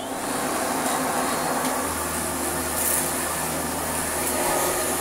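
Restored Hitachi CV50-D upright vacuum cleaner running, its motor and fan giving a steady rush of air over an even hum; a deeper hum joins about two seconds in. It sounds really quite good.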